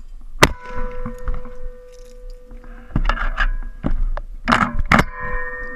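Shotgun with a camera mounted on it: a sharp metallic crack about half a second in and another near the end, each followed by a ringing tone, with clattering in between.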